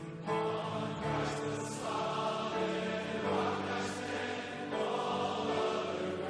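Choral music: sustained vocal chords that change every second or so.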